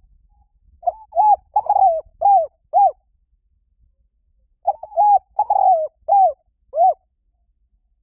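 Spotted dove cooing: two phrases of about five coos each, separated by a pause of nearly two seconds.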